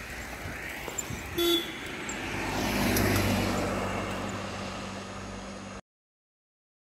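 Highway traffic: a short vehicle horn toot about a second and a half in, then a motor vehicle passing, its engine hum and tyre noise swelling and fading. The sound cuts off suddenly near the end.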